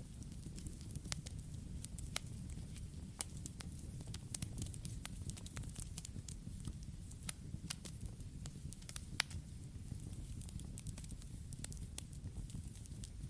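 Campfire burning: a steady low rush of flames under irregular sharp crackles and pops from the burning wood, with one louder pop about two-thirds of the way through.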